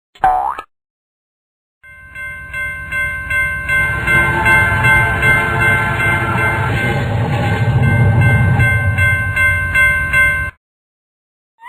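Railroad crossing warning bell ringing in a fast, even rhythm while a train passes. The train's rumble swells and then fades, and both stop abruptly near the end. A short rising whoop sounds just before them.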